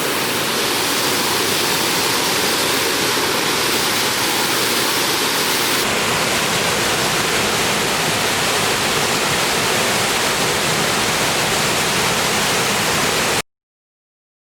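Waterfall rushing steadily, cutting off suddenly near the end.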